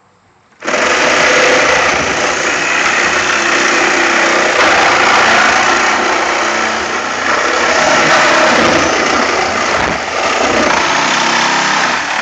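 Reciprocating saw with a wood-cutting blade sawing through a car's sheet-metal roof. It starts abruptly about half a second in, runs loudly and steadily, and stops just before the end.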